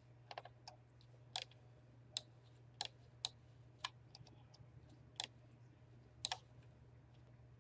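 Computer mouse clicking about a dozen times at irregular intervals, over a faint steady low electrical hum.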